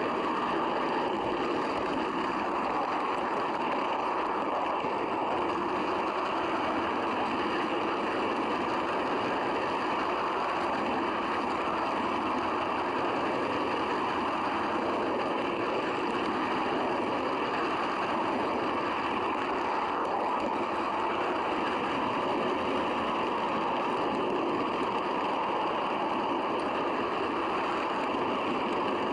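Steady, unbroken rolling rumble of a model train running along the track, heard from a camera riding on one of its coaches.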